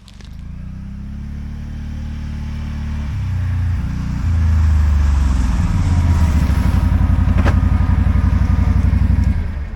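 Can-Am 570 ATV engine running under way, a low throb that grows louder over the first few seconds, then holds steady with a fast, even pulse until it fades near the end.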